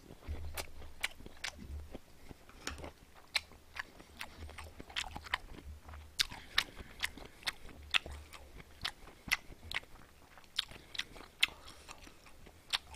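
A person chewing a mouthful of grilled marinated chicken close to the microphone: irregular sharp mouth clicks and smacks, a few a second.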